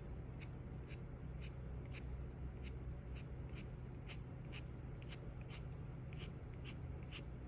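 Short scratchy drawing strokes on cold-press watercolour paper, about two a second, over a steady low hum.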